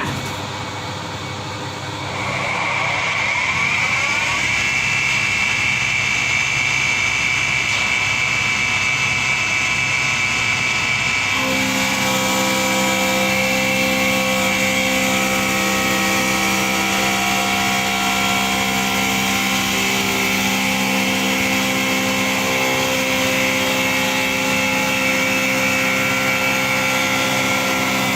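CNC wood lathe running: its motor spins up with a rising whine about two seconds in, then holds a steady high whine. About eleven seconds in, lower steady hums join as more of the machine starts running.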